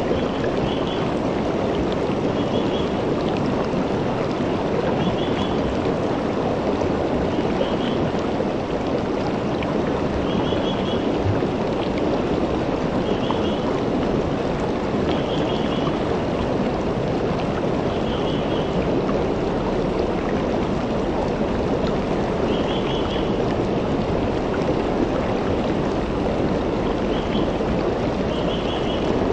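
Shallow rocky creek flowing over stones: a steady, even rush of water. A faint, high chirping call of a few quick notes repeats every two to three seconds above it.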